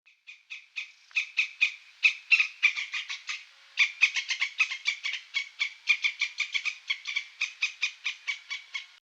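An animal calling in a rapid, steady series of short high chirps, about five or six a second, stopping near the end.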